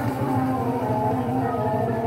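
Background music: held, slowly wavering melody notes over a steady low drone.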